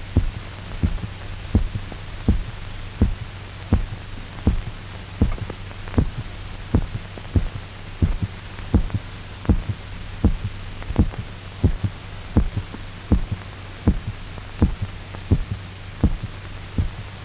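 A dog's heartbeat, beating regularly about 80 times a minute over a steady low hum, as its blood is being drained off.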